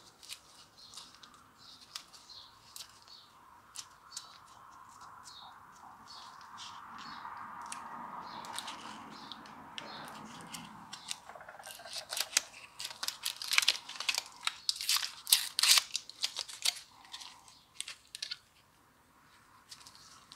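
Aluminum foil tape being peeled off its roll and wrapped around a socket: a drawn-out peeling noise in the middle, then a burst of crinkling and crackling as the foil is pressed down, with scattered small clicks and taps throughout.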